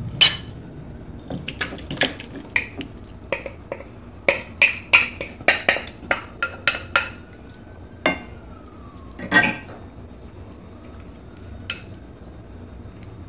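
Glass bowls and a spatula clinking and knocking as potato salad is scraped out of one glass bowl into another. A quick run of clinks fills the first seven seconds, then a few scattered knocks follow.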